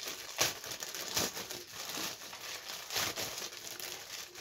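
Clear plastic bag crinkling and rustling as it is pulled open by hand, with irregular sharper crackles among the rustle.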